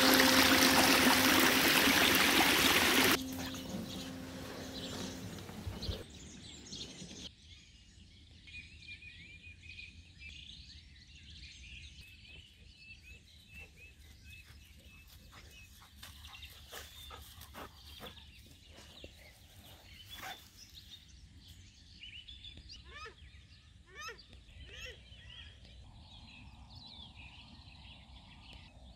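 Storm runoff rushing down a channel, with background music, for about three seconds. It drops off sharply and fades out by about seven seconds in. After that there is faint birdsong, many short chirps, over a quiet outdoor background.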